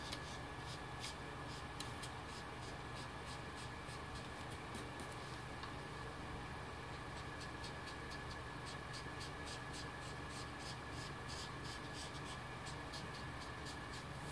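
Small ink blending tool rubbed over the edge of smooth white cardstock in quick, short, repeated strokes, a soft dry scuffing that shades the card's border.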